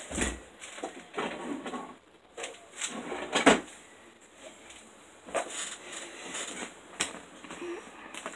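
A person moving about a small room and picking up a mask lens: a few knocks and thuds, the loudest about three and a half seconds in, with rustling between.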